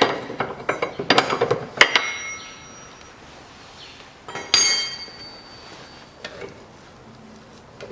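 Steel tools and parts clinking and clattering as a spanner and a removed steering tie rod are handled, then a single louder metallic clank about four and a half seconds in that rings on briefly, and a fainter knock a couple of seconds later.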